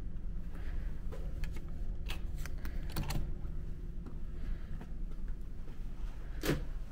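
Sharp clicks of an electronic card-key door lock and its handle as a cabin door is unlocked and opened, with one louder clack near the end. Under it runs the ferry's steady low hum.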